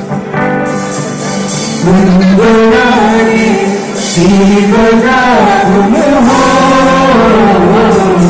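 Live band music with vocals: a singer holds long, sliding notes over acoustic guitar and band accompaniment in a song medley, getting louder about two seconds in.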